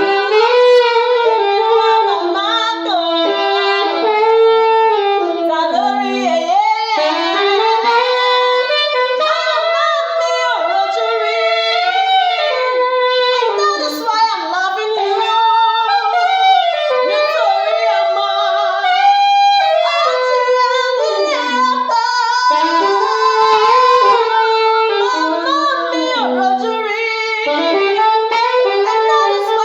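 Music: a slow wordless melody with vibrato, an instrumental break in a sung love song, without words.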